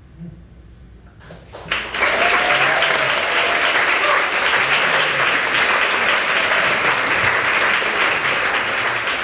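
Audience applauding after a live stage performance. The applause breaks out suddenly about two seconds in after a short lull, with a voice calling out early in it, then carries on steadily.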